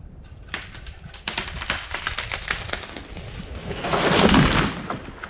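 A large tree giving way at the cut and falling: a rapid run of sharp cracks and snaps for about three seconds, then a loud crash as it hits the ground about four seconds in.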